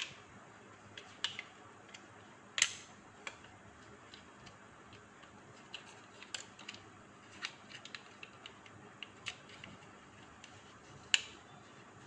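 Small plastic clicks and taps from handling a hard plastic cable-kit storage case, its hinged lid and the adapters seated in its slots. The clicks come irregularly, with two sharper snaps, one about two and a half seconds in and one near the end.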